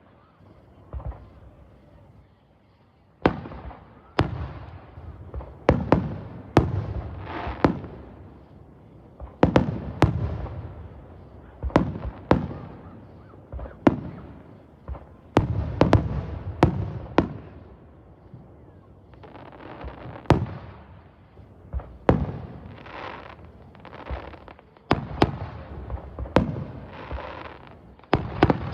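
Fireworks going off: a long run of sharp bangs at irregular intervals, some close together in clusters, each followed by a rolling echo that dies away.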